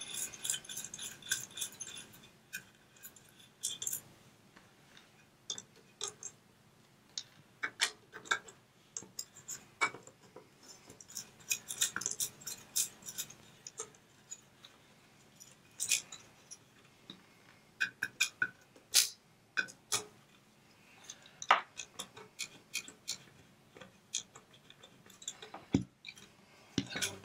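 Irregular light clicks and small metallic clinks of hand tools and nuts being worked off the meter-movement posts of an old Simpson 260 analog multimeter.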